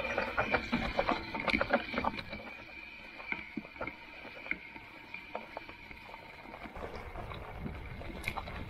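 Electric fat-tyre bike riding over a rough track: irregular clicks and knocks from the tyres and frame over a steady low rumble. The clicking is densest for the first couple of seconds, then thins out.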